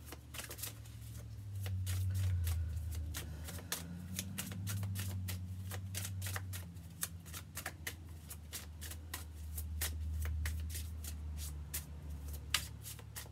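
A deck of tarot cards being shuffled by hand: a long run of quick card snaps and riffles. A low hum runs underneath, swelling and fading.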